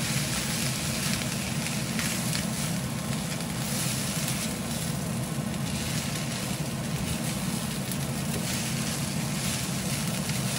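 Rice vermicelli, egg, ham and vegetables sizzling in an iron wok over medium-low heat while being tossed with a spatula, with a steady low hum underneath.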